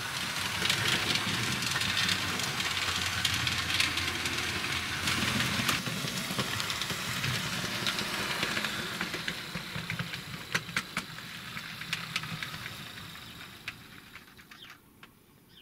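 Model railway train running on the track: a steady rolling rattle with sharp clicks from the wheels, fading away over the last few seconds.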